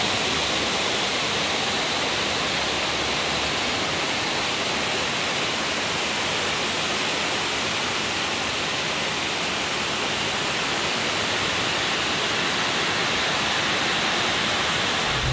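Iron-ore pellets pouring down ore-dock chutes into a lake freighter's cargo hold: a steady rushing hiss.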